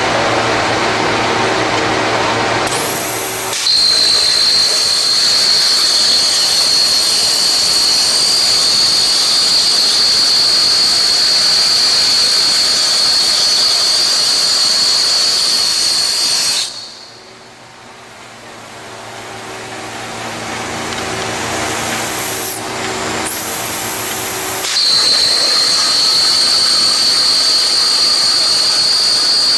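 Plasma torch of a plasma bevel cutting machine cutting metal: a loud, steady hiss with a high whine. The cut starts a few seconds in, stops abruptly around the middle and starts again near the end. A brief higher tone comes just before each start, and the machine's lower hum runs between cuts.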